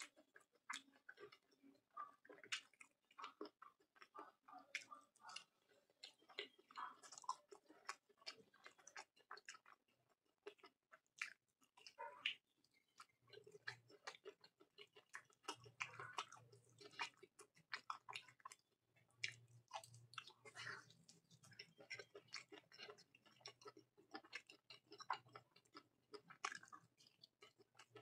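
A person chewing a mouthful of curry and fried rice: a faint, irregular run of wet chewing clicks and mouth sounds.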